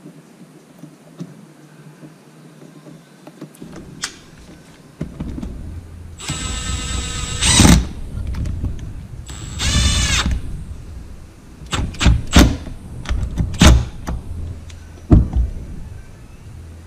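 A cordless power tool runs in two short bursts of motor whine, driving bolts home, followed by several sharp metallic knocks and clicks.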